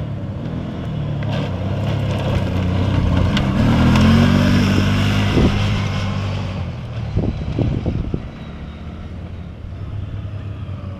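Racing ATV engine passing close by: it grows louder to a peak about four seconds in, then fades as it moves away, leaving a lower engine sound in the distance. A few sharp knocks come as it goes by.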